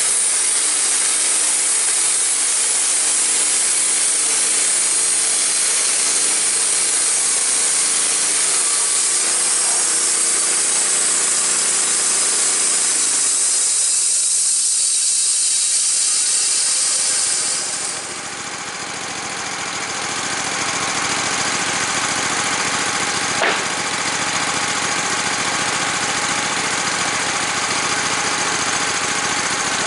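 Wood-Mizer LT15 bandsaw sawmill cutting through a white oak log: the blade in the wood gives a steady, loud high hiss over the running engine. About halfway through, the cut ends and the hiss drops away, leaving the engine running on with the blade free, with one sharp click a few seconds later.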